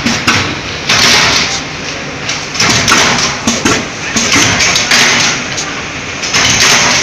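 Loud factory din: a dense rushing noise that swells and fades every second or so, with scattered knocks.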